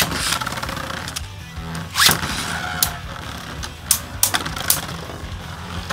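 Two Hasbro Beyblade Burst Turbo tops, Shelter Regulus and Vice Leopard, are launched into a plastic stadium and spin there. They clash with several sharp plastic clicks as they hit each other, and there is a short rising whir about two seconds in.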